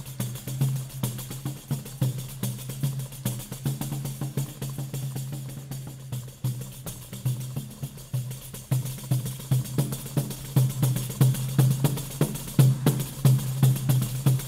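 Choro played by a percussion ensemble: a pandeiro beats out a fast, steady rhythm with its jingles, over a pulsing low bass line. The playing grows louder about two-thirds of the way through.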